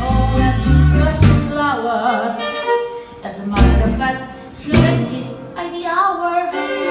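Loud show-tune music with a voice singing over strings. Heavy bass hits drop out after about a second and a half, then return as single accents.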